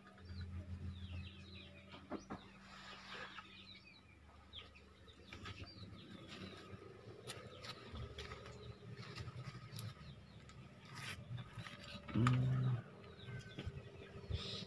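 Small birds chirping on and off, with scattered light clicks. About twelve seconds in comes a short, louder, low-pitched animal call.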